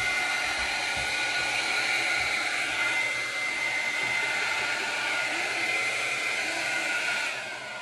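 Handheld hair dryer running steadily, a rushing blow with a high whine over it. It winds down and stops near the end.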